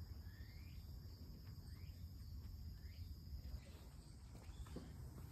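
Faint, steady high-pitched insect chorus, like crickets, with a few short chirps gliding up and down and a low rumble underneath.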